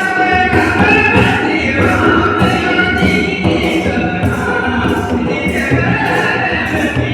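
Indian folk singing: a singer holds long, wavering notes over a steady beat of short, sharp high strokes coming roughly twice a second.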